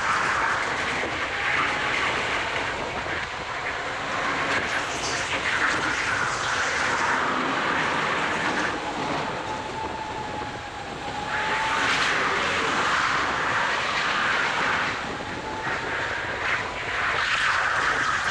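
Go-kart running at racing speed, heard from a camera on the kart: a steady rushing drone of motor, tyres and air. It eases off briefly about ten seconds in and builds again.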